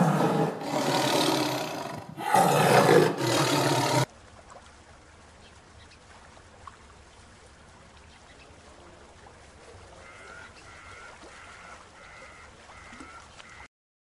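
Serval growling and hissing loudly in several rough bursts for about four seconds, then cutting off suddenly. Faint repeated calls from a king penguin colony follow, more noticeable near the end.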